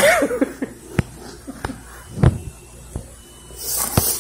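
Sharp knocks and bumps on a tabletop close to the microphone, about five over a few seconds, the loudest a little past halfway, after a brief hummed vocal sound at the start; a short rustle comes near the end.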